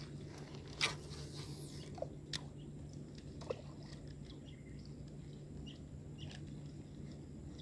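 A cast with a baitcasting rod and reel: a sharp click about a second in, then a brief high whir falling in pitch as the spool pays out line, followed by a few more reel clicks. A faint steady low hum runs underneath, and a few small bird chirps come near the end.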